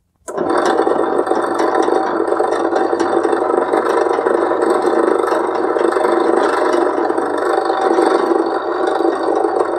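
Drill press running with a steady motor hum while its bit bores into a block of MDF.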